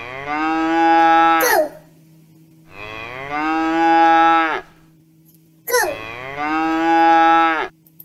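Cow mooing: three long moos of about two seconds each, about a second apart, each dropping in pitch as it ends.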